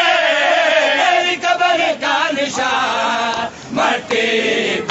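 A crowd of men chanting an Urdu noha (mourning lament) unaccompanied, their voices rising and falling through a held line of the lament, with a few sharp hits in between.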